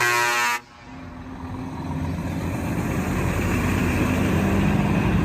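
Truck engine rumble that builds steadily louder from about a second in and then holds, after a brief pitched horn-like tone at the very start.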